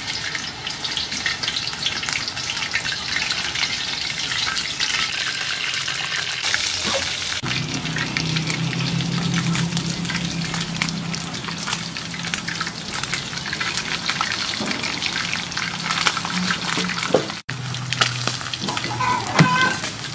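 Whole frogs deep-frying in hot oil in a wok: dense, steady sizzling and crackling. A low steady hum joins about seven seconds in.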